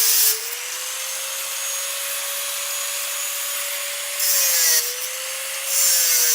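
A machine running with a steady hum, and a harsh hissing scrape that comes and goes every second or two. This is the noise coming from the machine.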